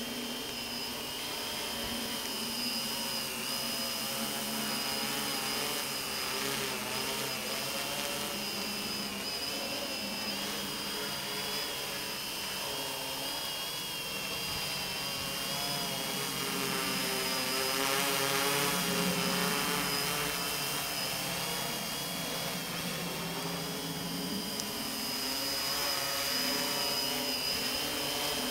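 Electric quadcopter's motors and propellers whining steadily as it flies low, the pitch wavering slightly as the throttle changes. It grows a little louder about two-thirds of the way through and again near the end.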